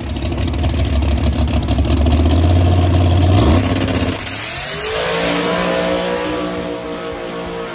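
Procharged big-block third-generation Camaro drag car's engine held at high revs on the starting line, then launching about four seconds in, its pitch climbing as it pulls away down the track.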